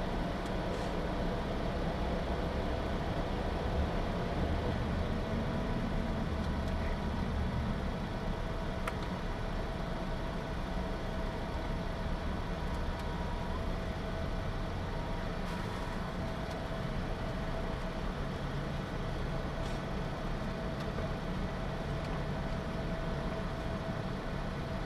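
A motor vehicle running steadily, a constant low engine and road noise with a faint steady whine above it.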